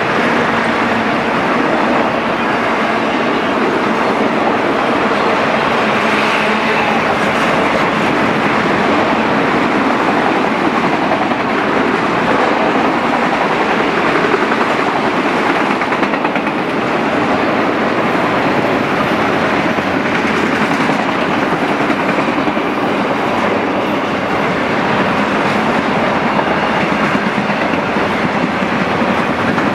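Autorack freight cars rolling past on steel wheels over the rails, a loud, steady rolling noise that does not change in level.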